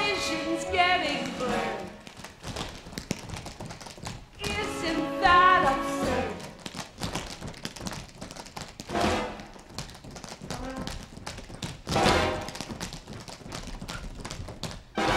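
A chorus line of tap dancers tapping rapidly on a stage floor in a dense patter of clicks. Short bursts of pit-orchestra music come in between the runs of taps.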